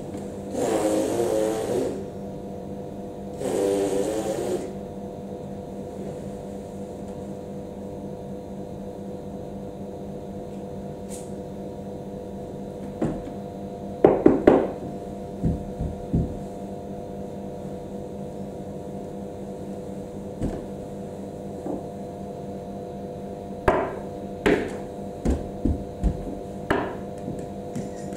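Scattered knocks and thumps of a dancer's knees, hands and body on a wooden tabletop over a steady room hum. The loudest cluster comes about halfway through, with more knocks in quick succession near the end. Near the start there are two wavering sounds about two seconds apart, each lasting a second or so.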